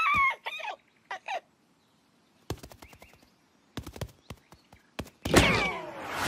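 Cartoon sound effects: a cartoon bird's short squawking calls, then a run of quick light taps like scurrying footsteps. About five seconds in comes a loud whooshing rush with a falling tone.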